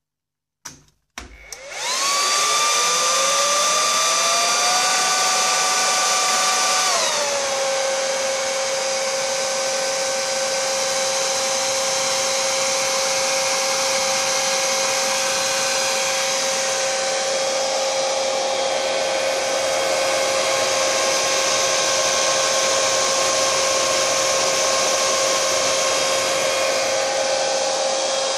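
Dell 2.1 kW server power supply powered up with two clicks, its high-speed cooling fans spinning up to full speed with a loud rising whine and rush of air. About seven seconds in the fans drop to a lower speed and run on steadily, the typical start-up behaviour of a server PSU's fans.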